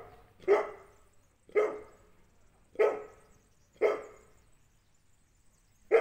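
A dog barking in single, separate barks, five of them about a second apart.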